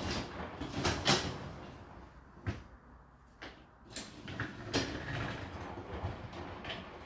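Racks of a Whirlpool dishwasher rolling on their runners, with several sharp knocks of dishes and racks being handled during loading.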